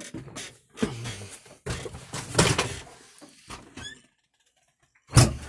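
Knocks and thumps of someone climbing into a tractor cab, with a pause and then one louder thud near the end.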